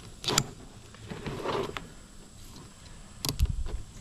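Scissors snipping and crunching through the hard, armour-like scaled skin of a longnose gar: sharp clicks near the start, a short rasping cut, then more clicks with a dull thump about three seconds in.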